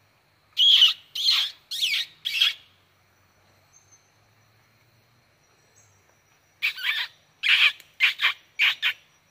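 A bird calling close by in two loud bursts of short notes that bend sharply in pitch: four notes about a second in, then after a pause of about four seconds, five more near the end.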